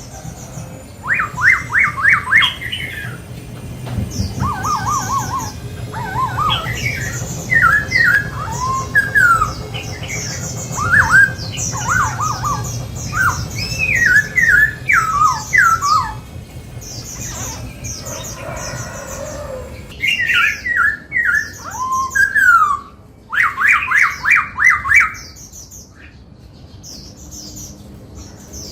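Black-throated laughingthrush singing loud phrases of quick, sharply rising and falling whistled notes, over and over with short pauses. A low hum runs under the song through the first half.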